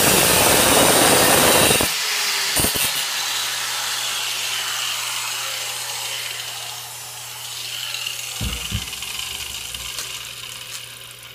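Handheld angle grinder with an abrasive cut-off wheel cutting through a steel knife blank, a loud grinding that stops suddenly about two seconds in. The wheel then spins down with a slowly falling whine that fades away, with a couple of dull knocks near the end.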